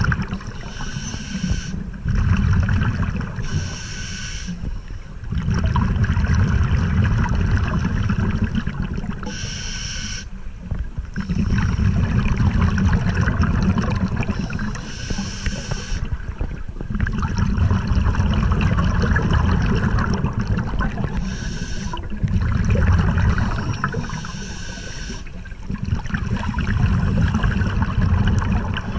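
Scuba diver breathing through a regulator underwater: a short hissing inhale with a faint whistle-like tone, then a longer bubbling, gurgling exhale, repeating about five times.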